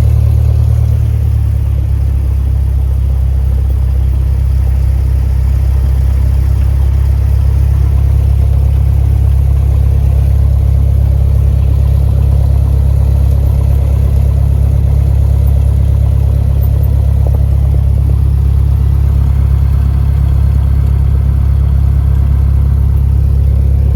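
Cessna 172's piston engine and propeller running at a steady speed, a loud, even low drone with a slight change in pitch about a second in.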